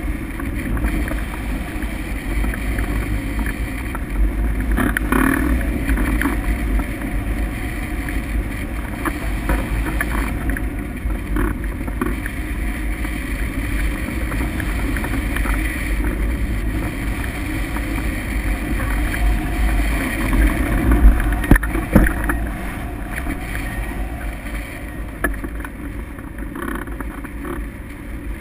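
Airflow rushing and buffeting over the microphone of a camera mounted on a hang glider in flight, a steady rumbling rush with a few sharper gusts about three quarters of the way through.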